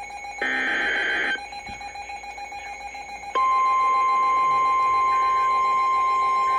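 NOAA Weather Radio Emergency Alert System signalling: the last buzzing SAME header data burst, about a second long, then a short lull, then the steady 1050 Hz warning alarm tone starting just over three seconds in and holding. It marks the start of a new warning broadcast.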